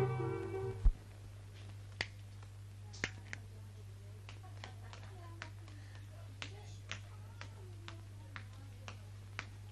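Orchestral string music ending with a low thump within the first second. Then a steady low hum with sharp clicks every half second or so, from a worn old film soundtrack.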